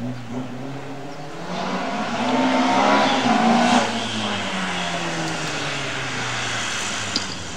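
Opel Kadett C Coupé slalom car's engine revving hard as it is driven through the cones, its pitch climbing and dropping several times, loudest about two to four seconds in.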